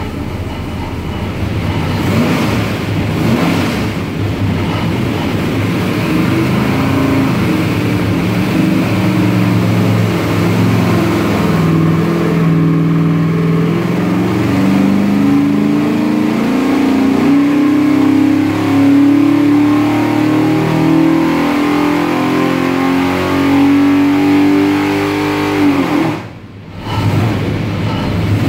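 632 cubic-inch big-block Chevy stroker V8 running on an engine dyno during a power pull: its note climbs steadily in pitch for about twenty seconds. Near the end it drops off sharply and goes briefly quieter, then picks up again.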